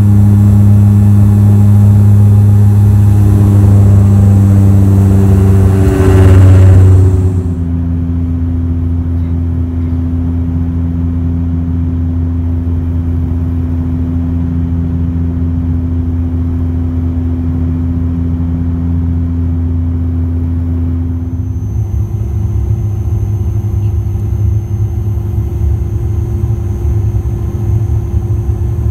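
Cabin drone of a Dash 8 Q400 turboprop's Pratt & Whitney PW150A engine and six-bladed propeller, heard through the cabin wall beside the nacelle: a loud, steady hum with a low throb. The drone changes suddenly about seven seconds in, dropping to a quieter, smoother hum, and again a little past twenty seconds, where a high thin whine joins it.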